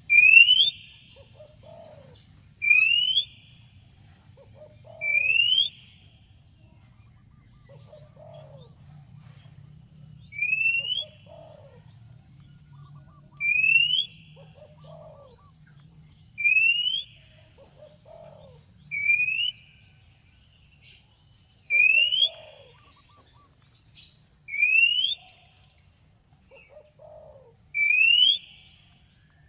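Oriental magpie-robin (kacer) giving a repeated challenge whistle: about ten short rising whistles, each ending in a ragged trill, spaced a few seconds apart.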